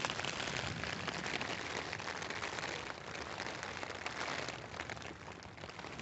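Rain falling on a camping tent, heard from inside the tent: a dense, steady patter.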